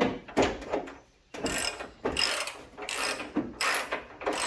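Hand ratchet wrench worked in steady strokes, about one and a half a second, tightening bolts while a truck fender is fitted.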